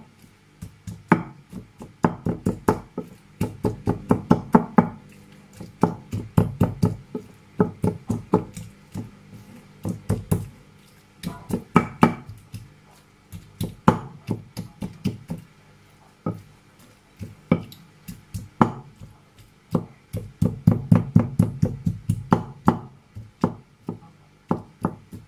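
A white pestle pounding avocado in a bowl, knocking against the bowl's bottom: quick runs of sharp knocks, several a second, broken by short pauses.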